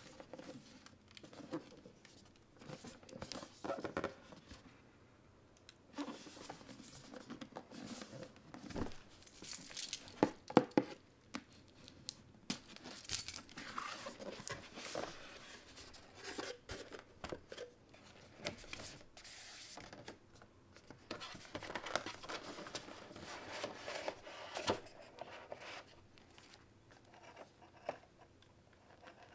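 Cardboard and paper packaging being handled: a cardboard box is slid out of a shipping carton lined with tissue paper, its flaps are opened and a headset is lifted out of its tray. It gives irregular rustling, crinkling and scraping, with a cluster of sharp knocks about nine to eleven seconds in.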